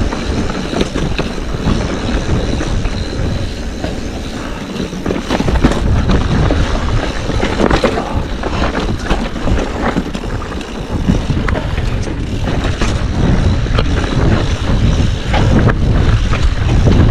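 Yeti mountain bike riding over a rocky dirt trail: tyres rolling on gravel and rock with frequent clicks and knocks as it bounces over stones, and wind rushing over the microphone in a low rumble that grows stronger about halfway through.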